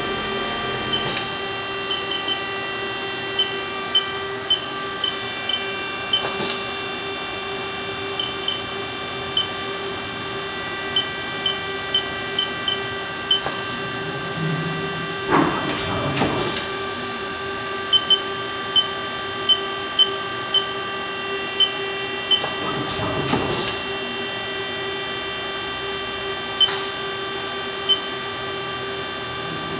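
Haas DT-2 CNC drill/tap/mill machining centre running a cycle: a steady whine with many short high ticks and a few sharp knocks. About halfway through and again about three-quarters through, a sweeping pitch change passes.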